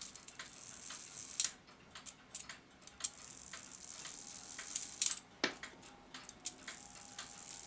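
Irregular small metallic clicks and ticks from an early-1900s cuckoo clock movement's wheels and levers as it is advanced while its strike release is tested. A few sharper clicks stand out, about a second and a half in and again around five and six seconds.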